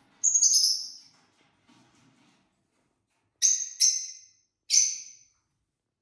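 Lovebird calling with high-pitched chirps: a quick burst of calls just after the start, then three sharp single chirps from about three and a half seconds in.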